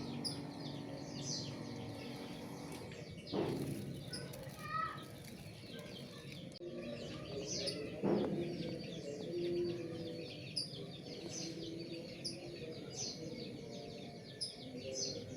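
Small birds chirping repeatedly over a low, steady background. Two louder rushing sounds come about three and a half seconds in and about eight seconds in.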